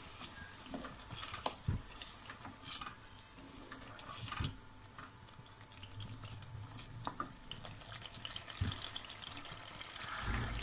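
Chicken and tomato-chilli-ginger paste frying at a soft sizzle in a metal pot while the masala is browned (bhuna). A spoon stirs and scrapes through it, with scattered clicks and knocks against the pot.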